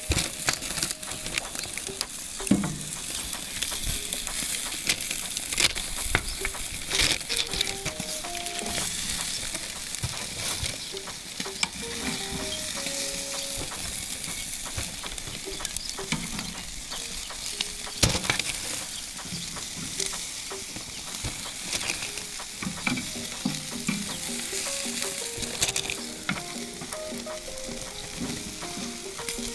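Chicken and turkey wings sizzling as they cook, a steady hiss with scattered sharp pops and clicks. Faint background music with a melody runs under it.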